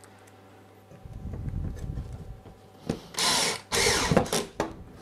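Cordless drill-driver driving a small pan-head screw through a plastic clip into a pre-drilled hole in a wooden board, in two short bursts about three and four seconds in, after a low rumble.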